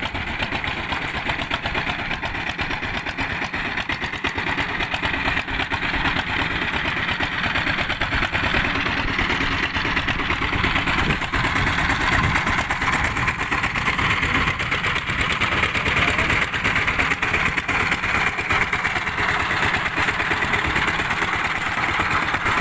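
Two-wheel walking tractor's engine running steadily close by, a fast, even chugging that grows a little louder about halfway through.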